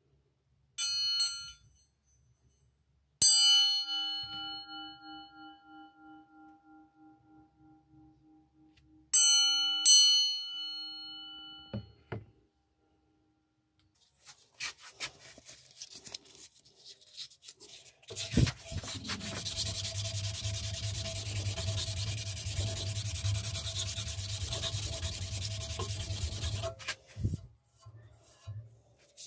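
A hanging steel knife blade is tapped with a thin rod and rings like a bell, several clear tones fading slowly; it is tapped four times, the second ringing for several seconds and the last two close together. From about halfway on, a steady rubbing of abrasive on steel runs until near the end.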